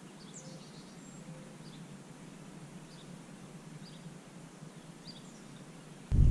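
Faint, short, high chirps of small birds, about one a second, over a low steady outdoor background. Near the end a sudden loud, low rushing noise cuts in.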